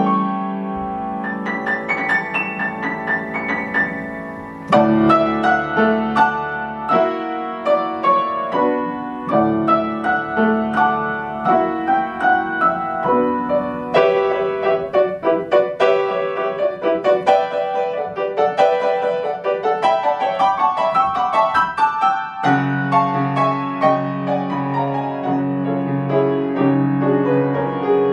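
Solo grand piano played with many quick notes, quieter at first and growing suddenly louder with deep bass notes about five seconds in.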